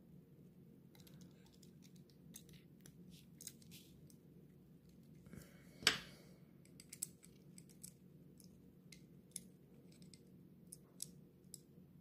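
Faint scattered clicks and ticks of a small die-cast model car and its parts being handled and fitted together by hand, with one sharper click about six seconds in.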